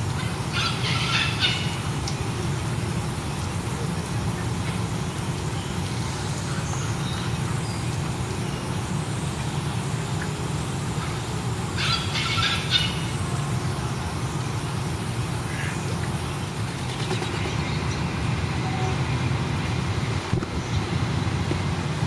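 Steady low outdoor rumble, with two short high-pitched squeals, one about a second in and one about twelve seconds in.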